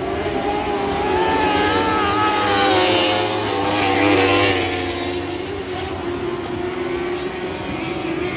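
Lightning sprint car engines running at racing speed on a dirt oval, their pitch rising and falling through the turns. The sound is loudest about three to four seconds in, as a pair of cars passes close by, then eases off as they move away.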